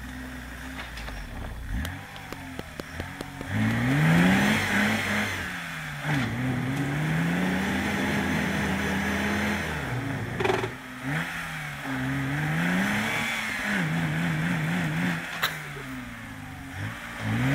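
BMW 325e 2.7-litre straight-six engine in a homemade tractor, revved up and down repeatedly under load while driving through mud. Its pitch climbs, holds high for a few seconds, drops and surges again, with a sharp knock about ten seconds in.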